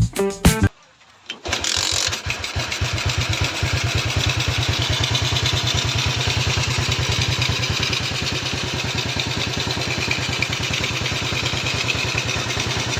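The freshly overhauled PMR Origin 100's engine starts about a second and a half in, after the music cuts off, and settles into a steady, evenly pulsing idle.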